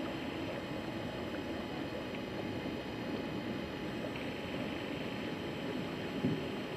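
Steady rushing noise of wind and water on open, choppy water, with one brief bump about six seconds in.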